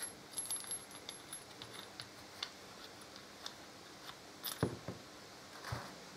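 Light metallic clicks and taps of bolts being worked out of a chrome Harley-Davidson brake caliper as it is handled, with two louder knocks near the end as the caliper meets the bench.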